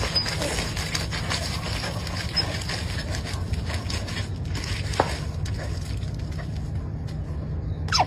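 A dog pawing and scraping at wet dirt and straw by a muddy puddle, over a steady low rumble, with one sharp click about five seconds in.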